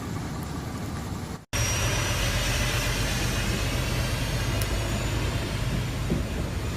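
Heavy truck engine running steadily under an even wash of noise, as of water or rain. The sound drops out for an instant about a second and a half in and comes back louder.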